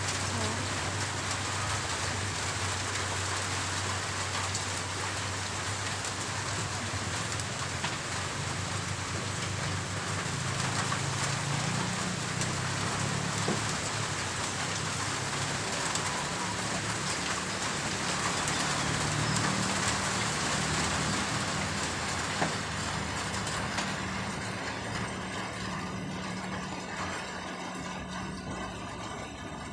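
Steady rushing hiss with a low hum underneath, easing a little in the last few seconds.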